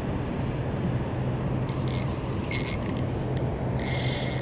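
Spinning reel on an ultralight rod ratcheting and whirring in several short bursts while a hooked fish is played on light line, the longest burst near the end. A steady low rumble runs underneath.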